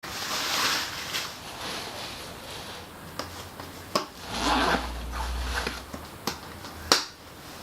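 Close rustling and handling noises, with several sharp clicks and a low rumble about halfway through.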